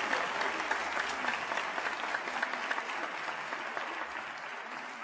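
Large concert-hall audience applauding after a performance, dense clapping that thins slightly near the end.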